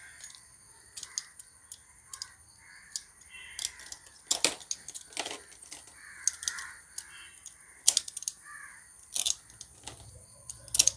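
Utility-knife blade cutting through plastic mesh, a series of irregular sharp clicks and snaps as the strands give way.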